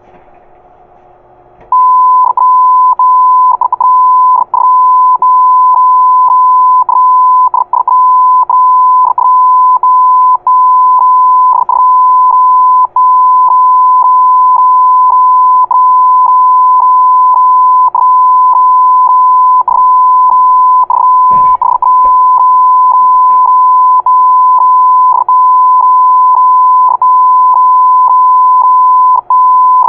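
A single high, steady Morse code beep keyed on and off, starting about two seconds in and sounding almost continuously with many short breaks. There is a brief low thump about two-thirds of the way through.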